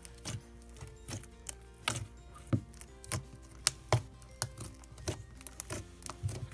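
Background music with held notes, under irregular sharp clicks and pops from slime being squeezed and poked.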